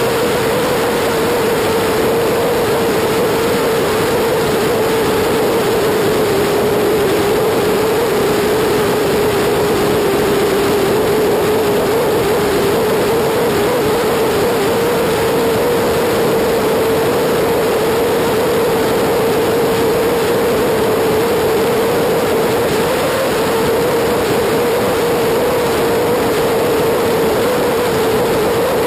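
BMW F800GS motorcycle's 798 cc parallel-twin engine running at a steady cruise, with a constant drone under heavy wind and road rush on a bike-mounted camera. The pitch holds steady throughout, with no gear changes or throttle blips.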